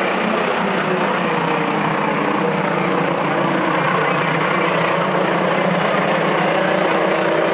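A pack of racing pickup trucks running at speed around a short oval track, many engines heard together in a loud, steady drone with their notes slowly rising and falling as the trucks pass.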